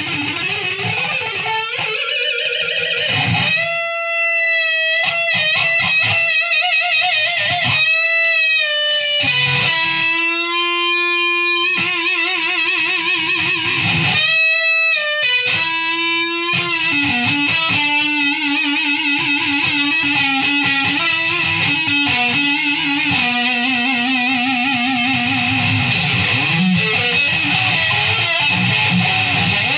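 Electric guitar playing a slow lead melody of long held notes with a wide vibrato.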